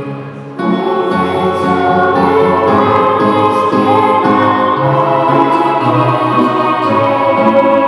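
Music with choral singing comes in abruptly about half a second in and carries on at a steady, full level.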